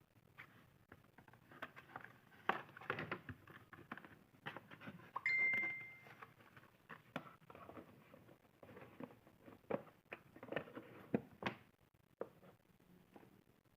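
Phone box and packaging being handled during unboxing: scattered rustling, scraping and light taps, with a brief high tone about five seconds in.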